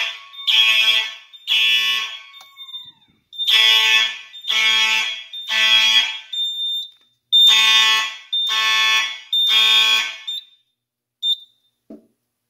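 Electronic fire alarm horns sounding the temporal-three evacuation pattern: three groups of three half-second blasts, each group followed by a pause. They stop about two seconds before the end, leaving a short high beep.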